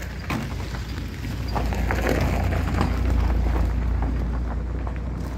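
Low rumble of wind and handling noise on a phone microphone, with a patch of crackling rustles and crunches about one and a half to three seconds in.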